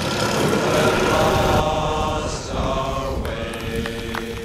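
Model airplane engine running with a steady whine that shifts in pitch about one and a half seconds in and again about three seconds in. Wind rumbles on the microphone underneath.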